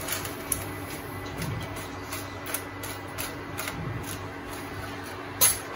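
Foil spice packet crinkling and rustling as powdered masala is shaken out of it, in a run of short crackles, with one sharp tap near the end.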